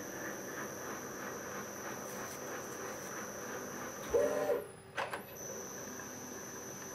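CNC mill spindle running a spiral-flute tap into a metal block during rigid tapping, a steady machine noise with faint, evenly spaced ticks. About four seconds in there is a brief loud tone, then a sharp click, as the tap is withdrawn from the hole.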